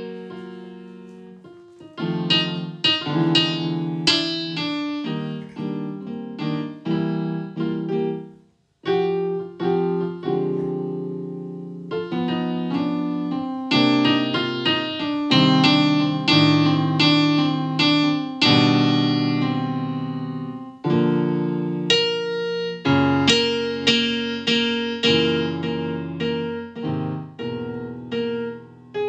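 Solo piano-type keyboard playing chords and melody, the notes struck and left to ring and fade, with a brief pause about eight seconds in.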